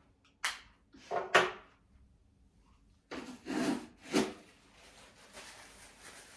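Several short clatters and scrapes, like small objects being picked up and put down, then a faint steady rubbing from about five seconds in, like a makeup brush or applicator working.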